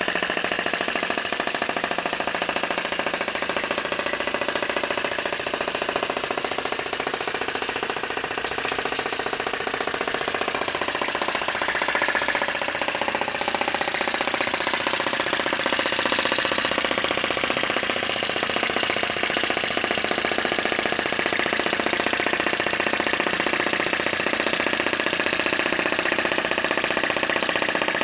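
Handmade 15 cc vacuum (flame-licker) engine running, a fast, steady mechanical clatter.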